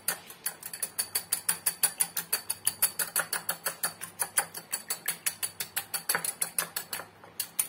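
A raw egg with onion and green chilies being whisked with a hand beater in a small glass bowl: rapid, even clicks of the beater against the glass, about seven a second, with a short break near the end.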